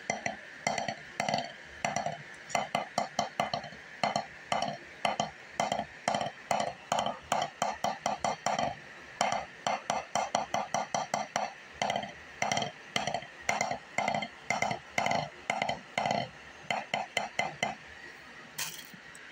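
Wooden drumsticks striking a drum practice pad, played by a beginner: uneven strokes, single hits mixed with quick runs of several, stopping about a second and a half before the end. Near the end comes one short burst of noise.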